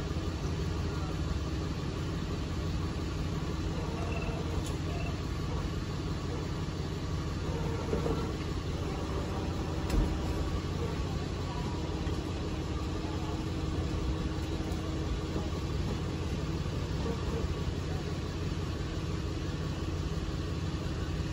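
Steady low rumble of an idling vehicle engine under street noise, with one sharp knock about ten seconds in.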